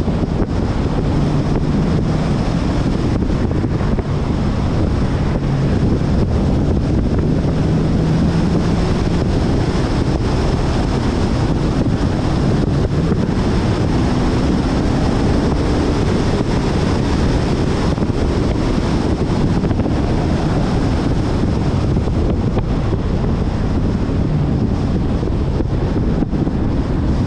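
Heavy wind buffeting on the microphone of a hood-mounted camera on a moving car, with the Dodge Challenger R/T's 5.7 HEMI V8 running faintly beneath it, its pitch shifting a little now and then.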